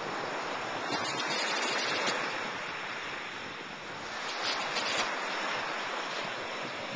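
Ocean surf breaking and washing over rocks along the shore: a steady hiss of waves that swells twice, about a second in and again past the middle.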